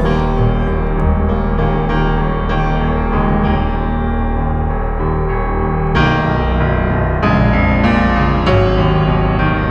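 Background piano music, notes struck and held in a slow, gentle flow.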